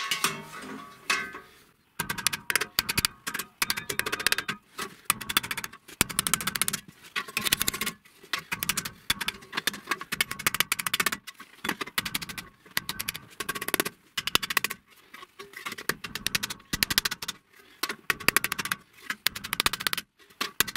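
Hammer tapping rapidly on thin galvanized sheet steel held over a steel block, drawing out and flattening the folded corners of a small tray. The taps come several a second, unevenly, starting about two seconds in.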